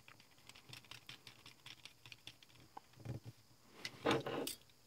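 Faint, irregular small clicks and taps as a pen-style USB soldering iron and a small hand tool are handled on the workbench, with a louder brief scuff about four seconds in.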